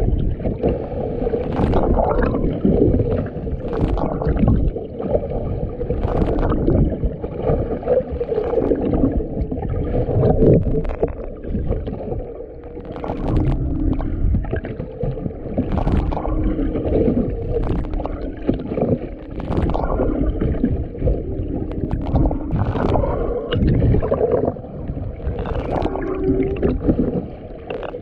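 Underwater sound: a steady low rumble of water and boat engine noise, with scattered sharp clicks and a few wavering tones.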